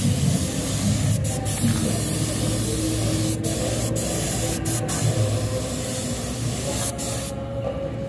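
Compressed-air spray gun with a gravity-feed paint cup hissing as it sprays paint, the hiss broken by several short gaps and stopping a little over seven seconds in. A steady low hum runs underneath.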